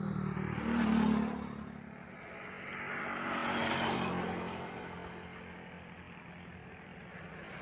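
Motor vehicles passing on a nearby road: engine and tyre noise swells up and fades, loudest about a second in and again around four seconds.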